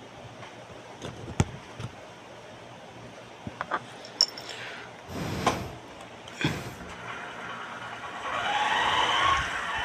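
A few clicks and handling knocks, then from about eight seconds in a motor vehicle engine running as it sets off.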